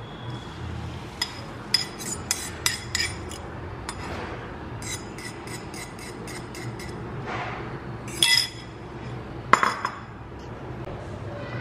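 Light clinks and taps of a ceramic bowl and kitchen utensils as beaten egg is poured into a nonstick frying pan. There are two louder knocks near the end.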